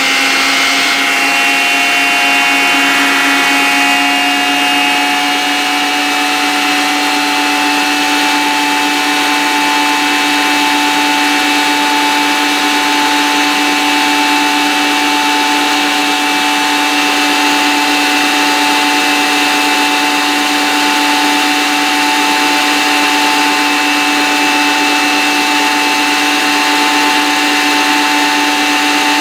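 Cadence Orbit Colors 400 W stand mixer running at maximum speed while whisking egg whites: a loud, steady motor whine that settles to its full pitch in the first second or two.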